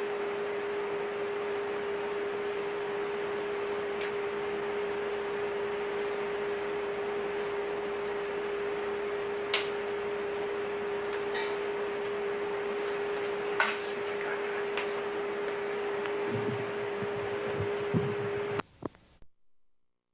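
A steady electrical hum at a single pitch over tape hiss, with a few faint clicks and low knocks. Near the end the sound breaks up and cuts off into silence as the videotape drops out.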